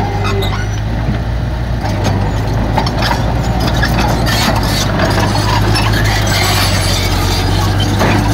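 Heavy diesel engine of construction machinery running steadily under load, with scattered short metallic clanks and squeaks.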